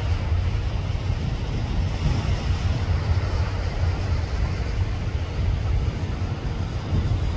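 Steady wind rumbling over the microphone on the open deck of a cruise ship at sea, with the wash of the sea beneath it.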